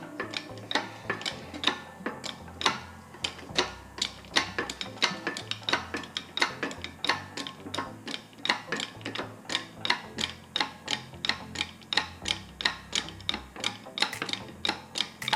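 Background music: a steady clicking beat, about three to four clicks a second, over a stepping bass line.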